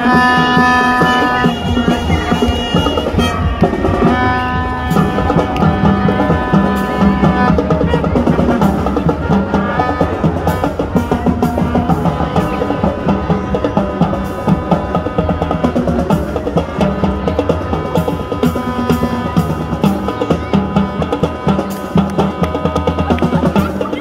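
Marching band playing: snare and bass drums beating a quick, busy rhythm, with horns holding chords at the start and again a few seconds in.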